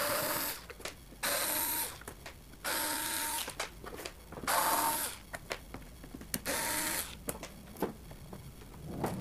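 Small cordless electric screwdriver running in short spurts, about five runs of half a second to a second each, undoing the screws of an active speaker cabinet, with light clicks between the runs.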